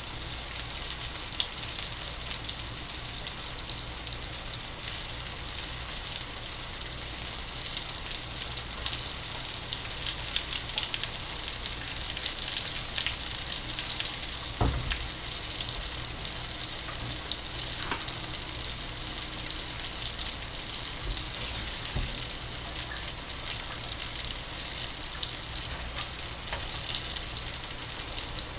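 Flour-coated mushroom bites deep-frying in hot oil: a steady, dense crackling sizzle. A single knock sounds about halfway through.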